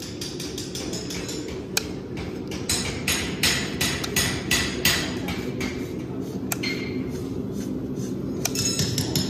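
Farrier's steel hand tools working on a long, overgrown horse hoof: a run of sharp metallic taps and clicks, about two a second and loudest through the middle, with single clicks before and after.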